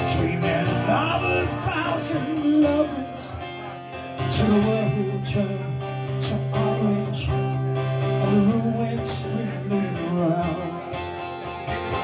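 A man singing with his own strummed acoustic guitar accompaniment.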